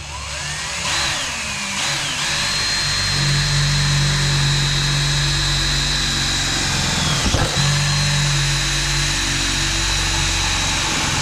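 Electric drill boring a hole through the metal back door of a school bus. Its whine rises as it speeds up, runs steadily, dips briefly about seven seconds in, then picks up again and stops near the end.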